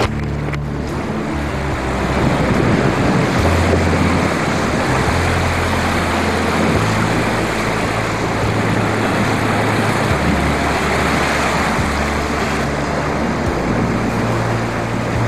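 Strong wind buffeting the microphone and the rush of rough sea around a small sailboat under sail in about 25 knots of wind: a loud, steady noise with a low rumble.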